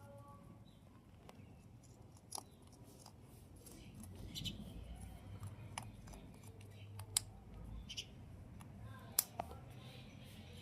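A parrot's beak snipping and cracking at food: a handful of sharp, scattered clicks, the loudest about seven and nine seconds in.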